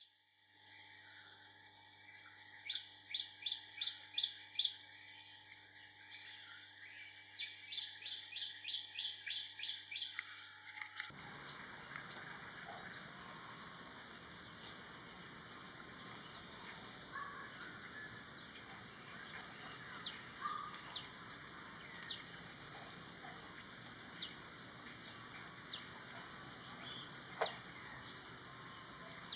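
A common iora calling in two runs of sharp, evenly repeated notes, about three a second, the second run longer. The background then changes abruptly to many scattered short bird chirps.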